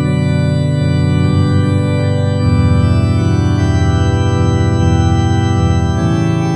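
Organ playing slow, sustained chords, with a chord change about two and a half seconds in and another near the end.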